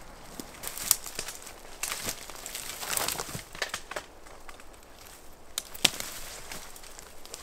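Footsteps pushing through dry brush, leaves and twigs crackling and swishing irregularly, with two sharp snaps, one about a second in and one near six seconds.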